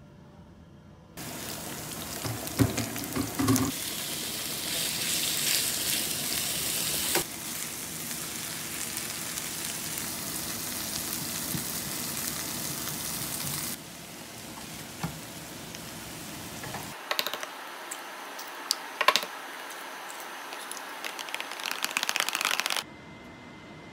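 Kimchi sizzling in a nonstick frying pan, with a few knocks of the spatula. The sizzling drops away a little past halfway. Near the end, eggs are beaten with a utensil in a plastic tub, giving a quick run of clicks that stops abruptly.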